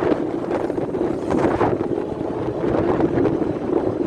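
Wind buffeting the microphone from a moving vehicle, with a steady low rumble beneath it.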